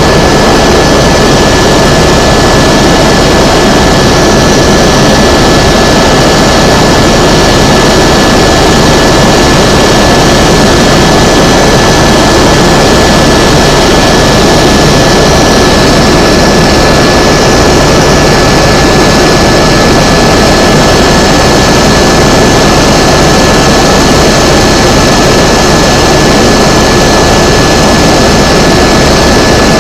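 Tour helicopter in flight, heard from on board: loud, steady turbine and rotor noise with a thin, constant high whine above it.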